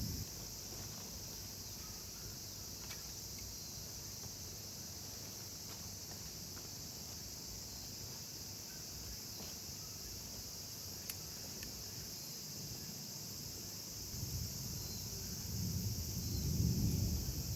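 Steady, high-pitched chorus of insects, with a single sharp click about eleven seconds in. A low rumble swells in near the end.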